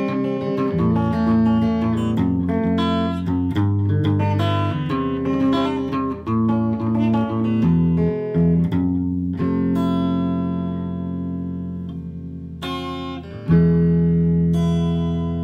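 Electric guitar played through a pedalboard: a picked line of quickly changing notes and chords, then long ringing chords that slowly fade, with a loud new chord struck near the end and left to ring.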